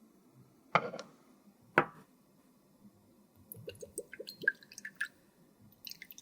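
Close-up handling sounds of makeup being worked on: two sharp taps about a second apart, then a quick run of small clicks and ticks.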